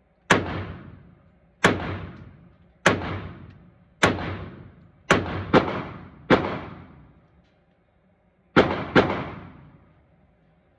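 Shots from a .45 ACP 1911 pistol, about nine in all: single shots a little over a second apart, then two quick doubles, one near the middle and one near the end. Each shot is sharp and trails off over about a second.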